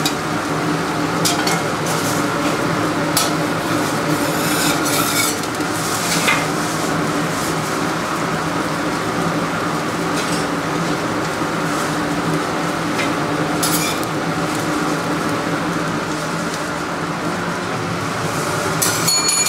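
Mysore masala dosa sizzling on a hot iron griddle, with a metal spatula scraping and tapping on the griddle every so often, over a steady kitchen hum.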